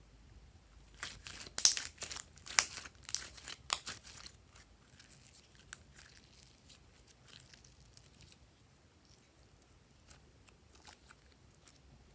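Glossy green glitter slime being squeezed and stretched by hand, giving sticky crackling, tearing sounds. The sounds come in a quick run of loud bursts in the first few seconds, then die down to faint scattered clicks.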